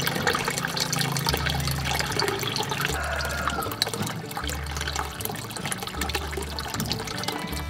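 Water pouring and splashing into a koi pond, a steady rushing splash.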